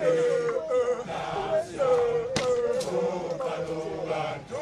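A group of voices chanting a song together in held, wavering notes, with one sharp knock about two and a half seconds in.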